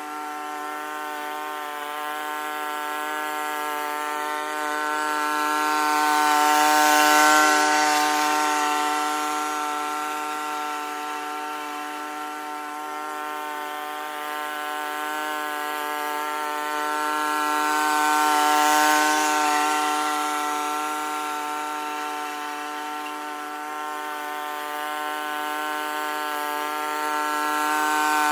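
Honda self-propelled rotary lawn mower running at a steady engine speed with its blade cutting grass. The sound swells louder and fades as the mower moves near and away, peaking about seven and nineteen seconds in and again at the end.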